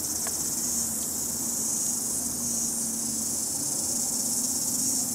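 A steady, high-pitched chorus of insects chirring outdoors, with no break in it.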